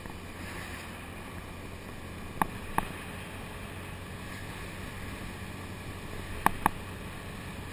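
Motor scooter running at a steady cruise with wind and road noise. Two pairs of sharp clicks cut through, about two and a half seconds in and again about six and a half seconds in.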